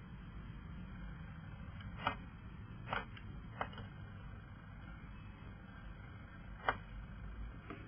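About five short, sharp clicks or taps at irregular intervals over a steady low hum.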